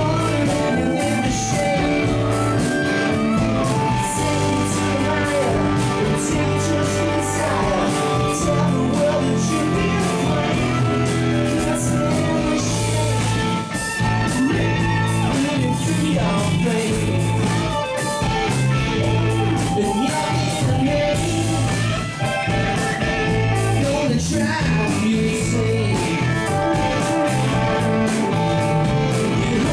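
A rock band playing live, with electric guitars, bass and drums under a lead vocal.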